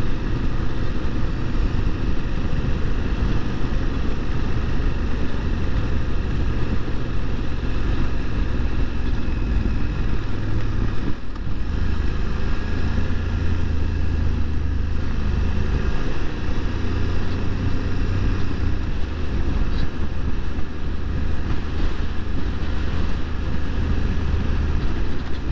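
BMW F750 GS parallel-twin engine running steadily under way on a gravel road, with wind and tyre noise over it. About eleven seconds in there is a brief break, after which the engine note sits a little lower.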